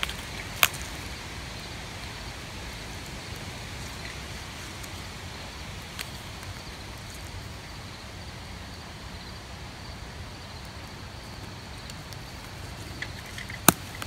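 Steady outdoor background hiss broken by a few separate sharp clicks: one just after the start, one midway, and the loudest near the end.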